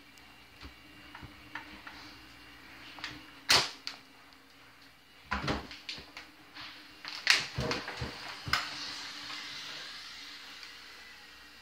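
A few sharp knocks and clicks, the loudest about three and a half and seven seconds in, over a faint steady hum in a small room. A soft hiss follows the last knock and fades away.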